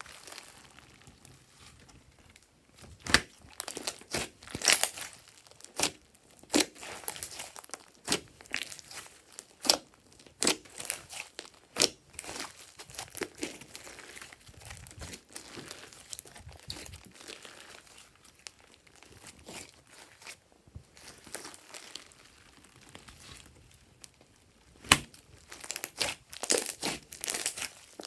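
Hands squishing and stretching glossy slime, giving irregular sticky pops, clicks and crackles, busiest near the end.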